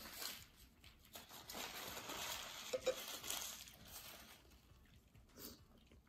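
Paper napkin crinkling and rustling as hands are wiped with it, with a few light clicks.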